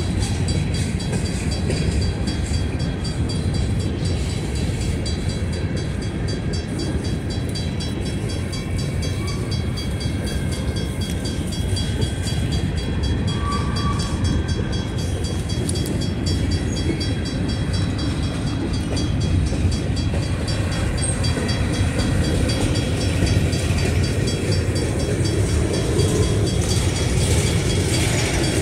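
Freight train of covered hopper cars rolling past: a steady rumble of steel wheels on the rails, with a fast, even clicking running through it.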